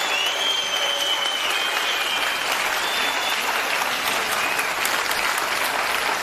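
Outdoor crowd applauding steadily, with a high held whistle over the clapping during the first few seconds.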